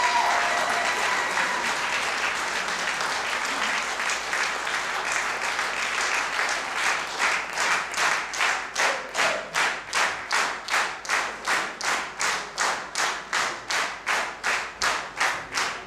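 Audience applause after a zither ensemble's performance, with the last zither notes dying away at the very start. About seven seconds in, the scattered clapping turns into steady rhythmic clapping in unison, a little over two claps a second.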